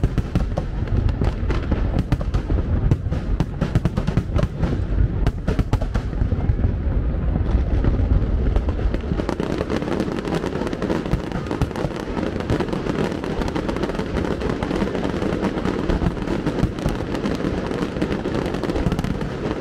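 Fireworks display: aerial shells bursting in rapid succession with deep booms through the first half, then a dense, continuous crackle of many small bursts.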